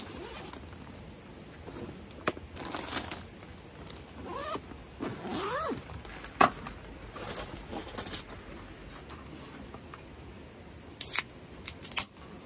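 Handling noises of a beer can being taken from a cooler bag and set on a wooden table, with a few short squeaky sounds midway. Near the end the aluminium can is opened: a short sharp hiss, then two clicks of the pull tab.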